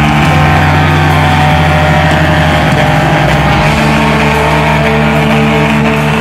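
Rock music with electric guitar, mixed with the engine of a pulling tractor running hard.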